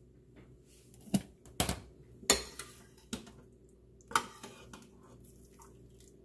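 Kitchen utensils clinking against dishes: about five separate sharp clinks, the loudest a little over two seconds in, over a faint steady hum.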